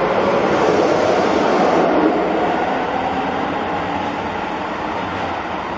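Keisei 3600-series commuter train pulling out of an underground station: a steady rumble of wheels and running gear, with a faint motor hum, slowly fading as the train goes off into the tunnel.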